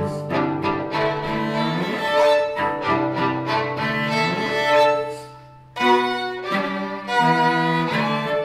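Violin and cello playing a duo live, the violin moving through quick notes over a held low cello note; the music dips briefly about five and a half seconds in, then both come back in strongly.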